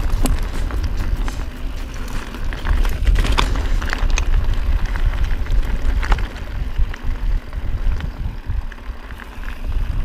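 Specialized Stumpjumper mountain bike ridden over loose rocky singletrack: tyres crunching over stones with scattered clicks and rattles from the bike, and wind buffeting the handlebar-mounted microphone.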